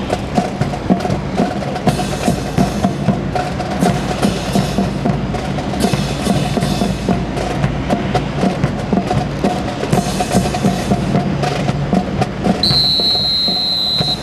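Rifle drill team marching in step to a steady beat of sharp, hollow knocks, about two or three a second. A long high whistle sounds near the end.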